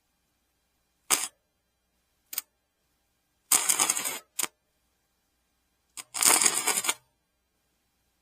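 Electric welding arc struck in short bursts, laying tack welds on small pieces: two quick tacks about a second and two seconds in, then longer welds of under a second each around three and a half and six seconds in, with a brief tack between them.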